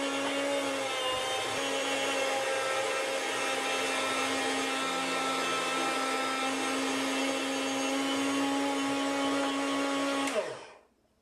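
Chef'sChoice 615 electric food slicer running with its circular blade spinning, a steady pitched motor hum as a block of pork is pushed through the blade. About ten seconds in there is a click as it is switched off, and the hum falls away within half a second.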